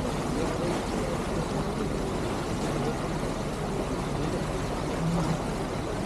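Steady drone of a lake passenger ship under way, its engine running evenly, with water rushing along the hull.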